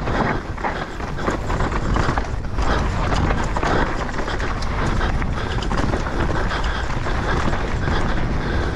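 Mountain bike descending a rough enduro trail at speed, heard from a body-mounted action camera: constant wind rush on the microphone with dense, irregular rattling and clattering of the bike and tyres over rocks and roots.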